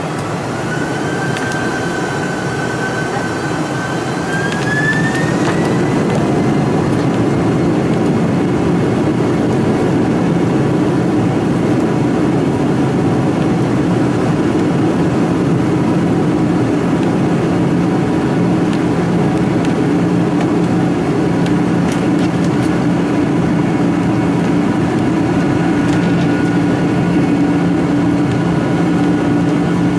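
Boeing 747-400's jet engines spooling up to takeoff thrust, heard from inside the cabin. A whine rises in pitch and the sound grows louder about five seconds in, then the engines run steady and loud through the takeoff roll.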